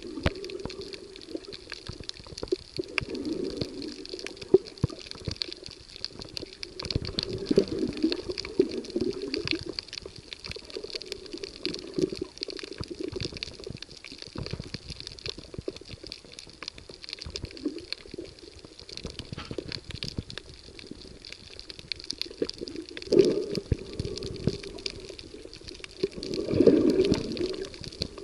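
Underwater sound picked up by a camera moving over a shallow coral reef: a continuous crackle of fine clicks over a muffled, sloshing water rumble, with two louder whooshes near the end.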